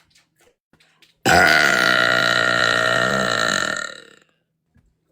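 A woman's single long, loud burp, starting suddenly about a second in and lasting nearly three seconds before trailing off.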